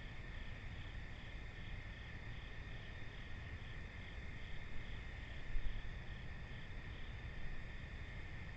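Late-summer insect chorus of crickets and katydids: a steady high trill with a second call pulsing about twice a second over it. A low rumble runs underneath, with a brief louder bump about five and a half seconds in.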